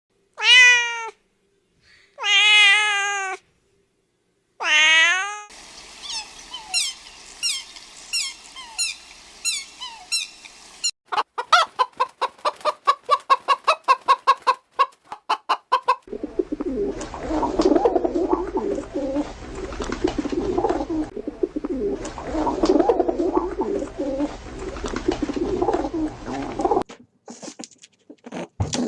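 Several different animals calling in turn. It opens with three short, meow-like cries that each fall in pitch, then quick repeated chirps, a rapid run of clicks, and a long stretch of rough, noisy calling that stops shortly before the end.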